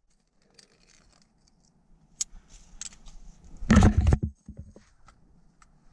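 Metal climbing gear clinking and clicking, carabiners and protection on a trad rack being handled. Scattered single clicks lead into a louder flurry of clatter about four seconds in.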